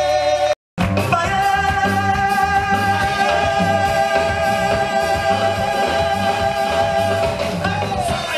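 Live sega band music: a singer holding a long note over guitar, keyboard and hand drum with a steady beat. The sound drops out briefly about half a second in, then the band and singer carry on.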